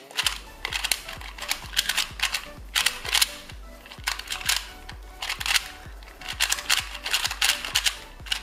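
YJ Guanpo budget 2x2 speed cube being turned by hand for its first turns. Its plastic pieces make a really clacky sound, coming in quick bursts of sharp clicks with each run of turns.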